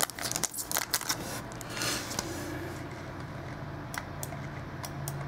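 Football trading cards being handled close to the microphone: a quick run of clicks and rustling in the first second or two, then a few light clicks.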